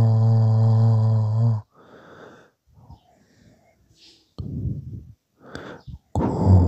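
A man's low, steady meditation chant note cuts off about a second and a half in. Then comes breathing: a few audible breaths, with a gap of near quiet. A loud intake of breath follows near the end, and a new low chanted note starts just before the end.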